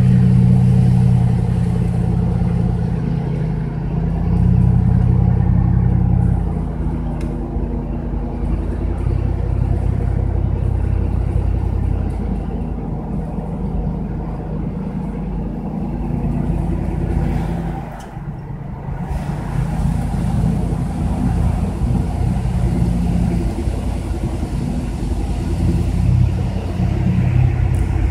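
Car engine and tyre noise heard from inside the cabin while driving: a steady low drone whose engine tones shift in pitch a few times. The sound drops off briefly about 18 seconds in.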